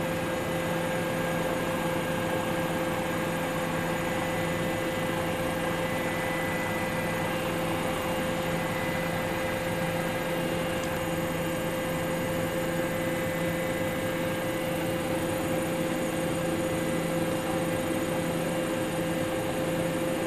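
Steady helicopter engine and rotor noise: a constant mechanical drone with an unchanging hum underneath.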